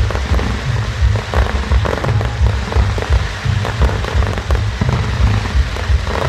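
Fireworks bursting and crackling in quick succession over loud music with a heavy bass line.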